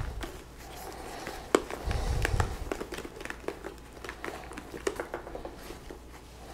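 Hands working a motorcycle helmet's padded liner and its plastic edge bead back into the shell: rustling and crinkling of fabric and plastic with scattered clicks, and one sharp snap about a second and a half in.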